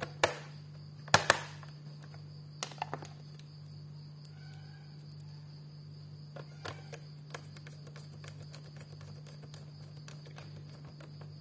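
Sharp plastic clicks and knocks as the RAM compartment cover is fitted back onto the underside of an Asus X454W laptop. The loudest come in the first two seconds, followed by a few lighter taps later on, over a steady low hum.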